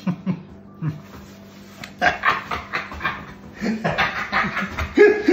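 Pet dog whimpering and huffing in a quick run of short sounds, then a louder falling whine near the end: the dog begging for a bite of food.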